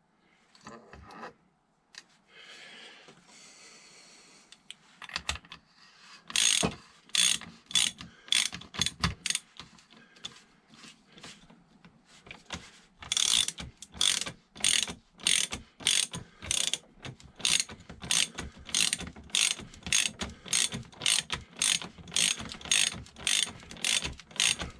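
Hand socket ratchet worked back and forth on the fork leg, its pawl clicking in quick strokes of about two a second. After a few seconds of faint rustling, the strokes start about six seconds in, pause briefly about halfway, then resume and keep a steady rhythm.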